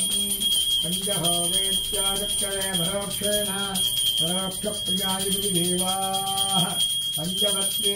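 Small brass puja hand bell rung continuously during the lamp aarti, with a steady high ring and fast, even strikes, under a woman's voice chanting Sanskrit mantras.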